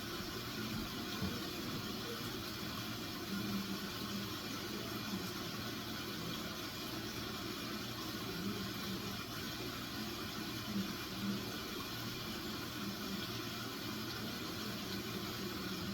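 Steady hiss of background noise, with a few faint short low sounds now and then.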